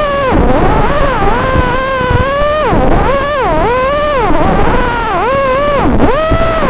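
ZMX 2205 2633kv brushless motors spinning 5x4 props on an FPV racing quad in flight, a loud whine that swoops up and down in pitch about once a second as the throttle is worked, over a steady hiss.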